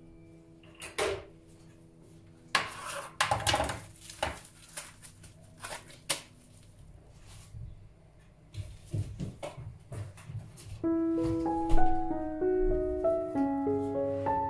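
Plastic cling film being pulled off its roll and crinkled and pressed over a glass dish, in scattered rustles and light knocks. About three-quarters of the way in, background music with a stepping melody starts and becomes the loudest sound.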